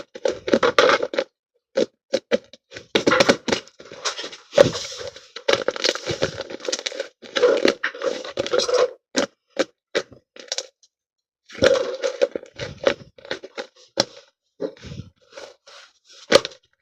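Slime being squeezed and stretched by hand, giving irregular crackling and popping clicks in quick runs, with a short pause partway through.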